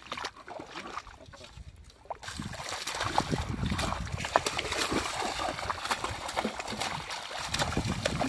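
Hands splashing and churning shallow paddy water, an irregular run of splashes and slaps as fish are grabbed by hand. It starts about two seconds in and keeps on.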